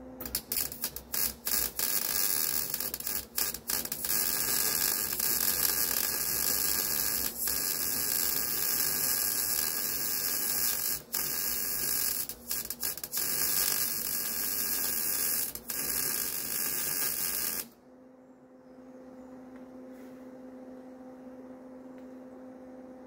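Welding arc from a Lincoln wire-feed welder laying beads on a steel air tank: a steady loud crackling sizzle with a few short breaks where the trigger is let off. It stops suddenly about 18 seconds in, leaving the welder's steady hum.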